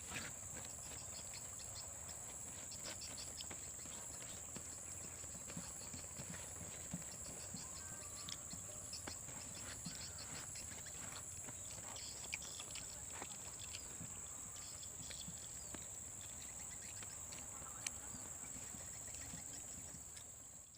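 Steady high-pitched drone of forest insects, with a second insect call pulsing evenly above it and scattered light clicks and taps. It fades out near the end.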